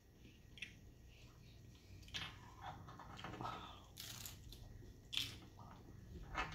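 Bites and chewing into a crisp ranch-flavoured hard taco shell: several sharp crunches from about two seconds in, the loudest a little after five seconds.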